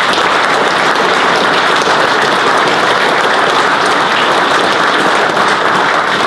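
Crowd applauding: many people clapping together in a dense, steady round of applause.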